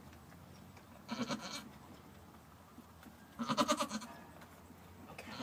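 Goat bleating twice: a short call about a second in and a longer, louder one about three and a half seconds in.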